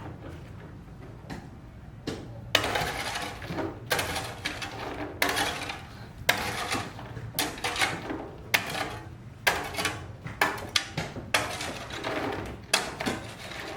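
Irregular clattering and scraping of hard objects, sharp knocks mixed with rasping scrapes half a second to a second long, starting about two and a half seconds in.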